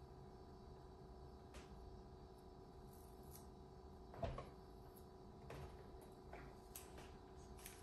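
Near silence: faint steady room hum with a few small clicks and taps of plastic toy pieces being handled, and one slightly louder knock about four seconds in.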